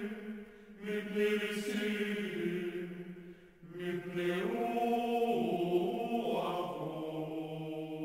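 Slow vocal chant: a sung melody in long held phrases, breaking off briefly about half a second in and again near the middle, in the style of synagogue liturgical chant.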